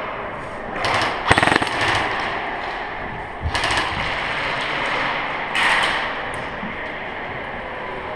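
Airsoft guns firing three short bursts of rapid shots, about one, three and a half and five and a half seconds in. The first burst, with a run of sharp rapid cracks about a second and a half in, is the loudest.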